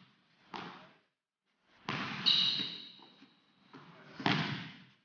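A basketball bouncing on a hardwood gym floor, several separate thuds that ring on briefly in the hall. About two seconds in, one of the impacts is followed by a short high ringing tone.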